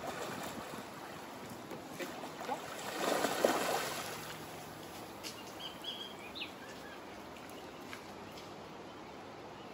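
Hooked spring chinook salmon thrashing at the water's surface, a splashing burst that swells about three seconds in and fades by the fifth second, over a steady background of moving water. A few short bird chirps come in around six seconds.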